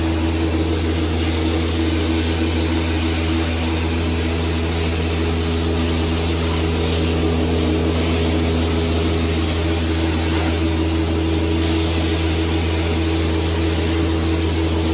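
Carpet-cleaning extraction wand and its hose-fed machine running steadily: a low machine hum under the rushing hiss of suction as hot water is sprayed and pulled back out of the carpet.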